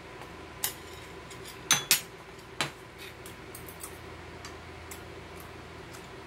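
Metal chopsticks clicking against ceramic dishes, four sharp clicks in the first three seconds with two close together near the middle, then a few faint ticks, over a steady low hum.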